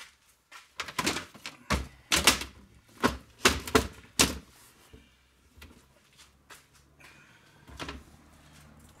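Folding plastic crate being opened out: a quick run of sharp plastic clacks and knocks as its sides are lifted and snap into place. A few softer knocks follow near the end.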